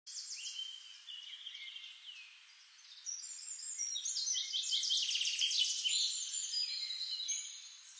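Several songbirds singing at once: overlapping high chirps and rapid trills. The singing thins briefly about two seconds in, then grows fuller from about three seconds.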